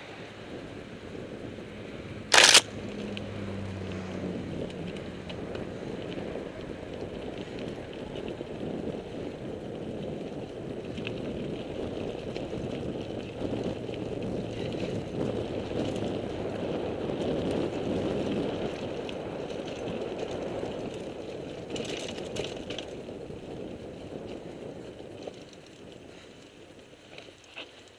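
Mountain bike rolling over a dirt and gravel trail, heard from a helmet camera: a steady rumbling hiss of tyres and wind. A sudden loud crack about two and a half seconds in and a few clicks around twenty-two seconds, and the noise eases off near the end.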